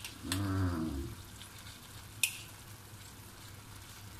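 Marinated chicken pieces being spooned onto cooked rice in a claypot over low heat: a faint sizzle under two sharp clinks of the spoon against the pot, with a brief low-pitched sound near the start.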